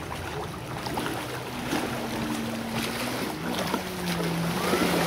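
Motorboat engine running with a steady hum, its pitch stepping down a couple of times, over outdoor lake ambience.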